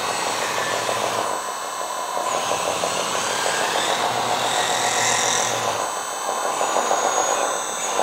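1/14-scale RC hydraulic tracked loader (Cat 963D replica) running and turning: its sound module plays a steady simulated diesel engine, mixed with the whir of its electric drive and hydraulic pump.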